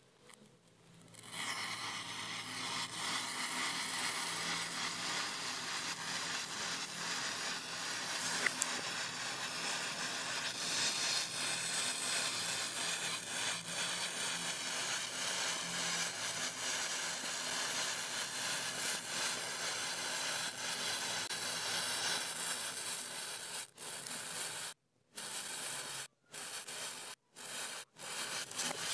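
Massed wooden matchsticks burning: a steady hiss with fine crackling as the match heads flare and the flames spread. The sound cuts out abruptly several times near the end.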